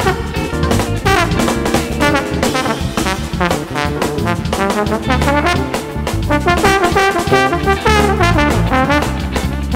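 Live jazz: a trombone plays a solo line with sliding, bending notes over the band's rhythm section of drum kit, bass and keyboard.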